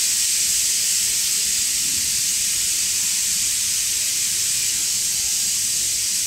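Steady high-pitched hiss running unchanged, a constant background noise with no distinct events.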